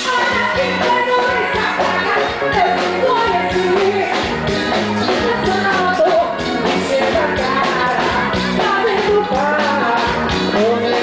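Forró band playing a song with a steady dance beat and a voice singing over it.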